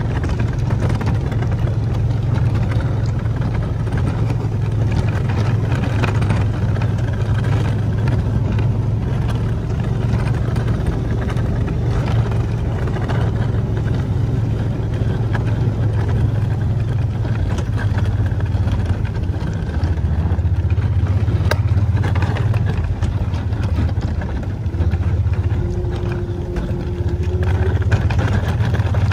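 Kawasaki Mule utility vehicle's engine running steadily under load while it pushes snow with its front plow, a low even drone with scattered faint clicks and rattles. The engine eases off briefly about three-quarters of the way through, then picks up again.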